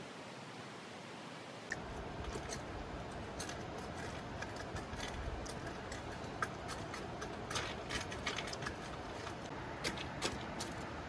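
Light, irregular clicks and clinks of dishes and utensils being handled, starting about two seconds in over a steady background hiss.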